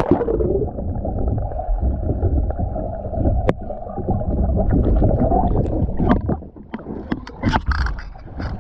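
A splash as the paddleboard capsizes and rider and board go into the lake. Then comes the dull, muffled rumble and gurgle of water with the action camera under the surface. About six seconds in the camera breaks the surface, and sharp splashes follow as the swimmer thrashes beside the board.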